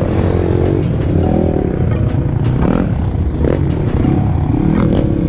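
Dirt bike engine running as it is ridden, its pitch rising and falling with the throttle, with scattered knocks and clatter.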